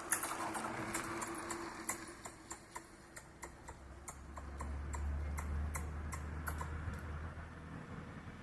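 Squirrel's claws clicking and scratching on tree bark as it climbs: a string of sharp, irregular clicks, a few a second. A low rumble swells in the middle and fades.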